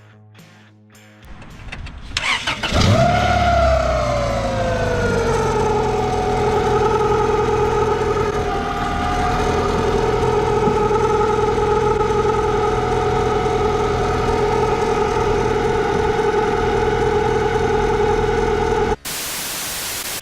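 Honda engine cranking briefly, then catching and starting on its first start after a new timing belt, water pump and valve adjustment. It flares up, settles within a few seconds and idles steadily. Near the end it gives way to about a second of loud even hiss.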